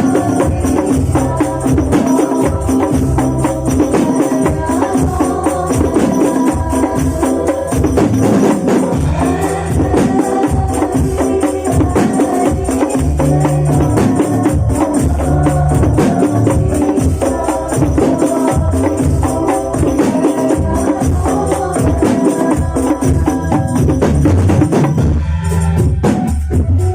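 Rebana ensemble music: frame drums and jingling tambourines keep up a dense, steady rhythm under a pitched melodic line. About 25 seconds in, the melody drops away and mostly the drums carry on.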